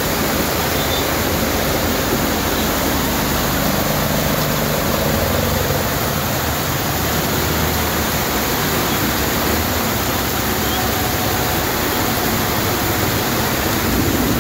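Heavy rain and floodwater rushing across a flooded road, a loud, steady wash of noise.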